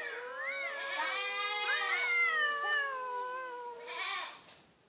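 Two cats yowling at each other in a fighting standoff: long, wavering, drawn-out yowls, two voices overlapping, then a short call about four seconds in that fades away.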